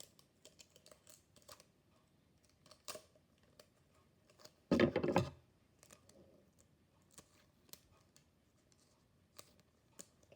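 Clear sticky tape and paper being handled: small clicks and rustles, with a louder ripping burst of tape and paper about five seconds in.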